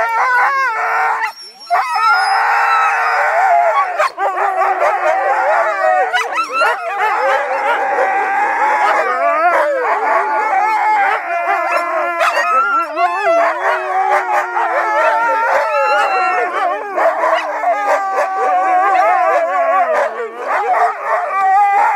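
Several harnessed husky sled dogs howling and yipping together, a chorus of overlapping wavering calls, with a brief break about a second and a half in.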